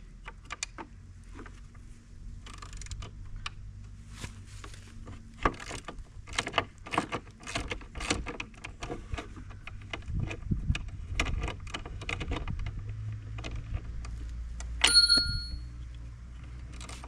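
Hand tools working on the nuts of a steel winch roller fairlead: irregular clicks and clinks of a wrench and socket on metal over a steady low hum, with one bright, ringing metallic ping about fifteen seconds in.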